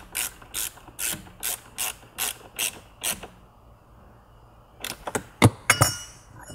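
Ratcheting Torx screwdriver clicking in short, evenly spaced bursts, about two to three a second, as a T20 screw is driven into plastic dashboard trim; the ratcheting stops about three seconds in. A few louder sharp clicks follow near the end.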